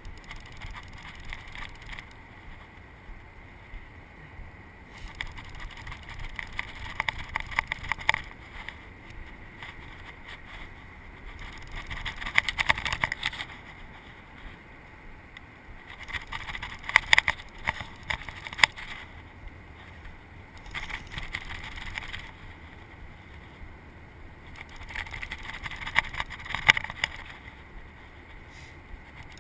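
Conventional fishing reel clicking in four bursts of a couple of seconds each as its handle is cranked with a fish bending the rod, over a low wind rumble on the microphone.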